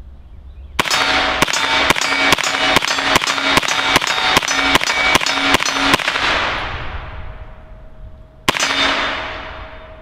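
An IWI Tavor bullpup with its 9mm conversion kit firing a fast string of about fourteen semi-automatic 9×19mm shots, about two and a half a second, with a ringing echo that rolls away for a couple of seconds. One more single shot comes near the end.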